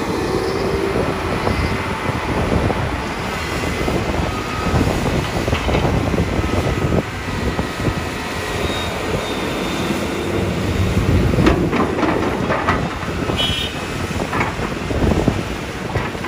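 Large Volvo crawler excavator at work: the diesel engine runs under load with a steady rumble, thin squeals and whines come and go, and a cluster of metal clanks and knocks sounds in the last few seconds.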